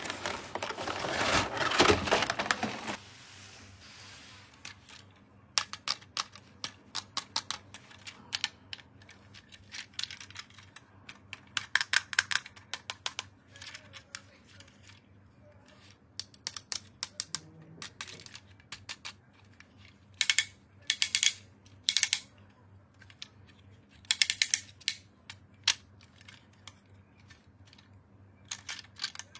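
Handling of a toy unboxing: a loud rustle of packaging for about the first three seconds, then many small sharp clicks and taps, in short clusters, of hard plastic toy pieces and packaging being handled.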